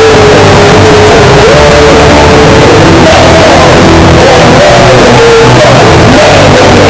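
Street punk band playing live, very loud: a melody line over driving bass and drums.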